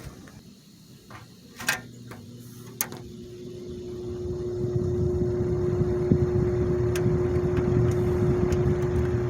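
A 1970s Lakewood 20-inch box fan started on medium speed: a switch clicks, then the motor hum comes in and the blades spin up, the rush of air rising over about two seconds and then running steadily.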